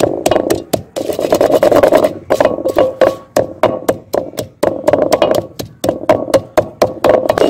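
Wooden pestle pounding green chillies and coriander leaves in a terracotta bowl, crushing them into a paste: rapid, uneven knocks, several strikes a second.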